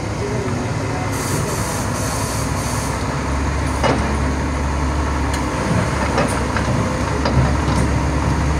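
Hitachi EX400 excavator's diesel engine running under load, heavier from about three seconds in as the loaded bucket swings over a dump truck, with a hiss in the first few seconds and a few sharp knocks as soil drops into the truck bed.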